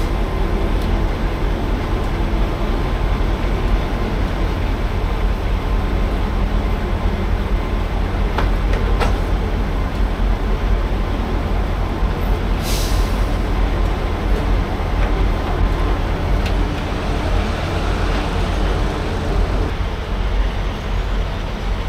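Semi-truck's diesel engine running with a steady low rumble, with a short burst of air hiss, typical of the truck's air system, about thirteen seconds in.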